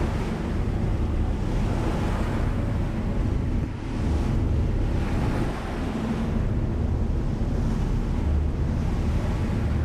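Wind on the microphone and water rushing past the hull of a passenger ferry under way, over the steady low drone of the ferry's engine.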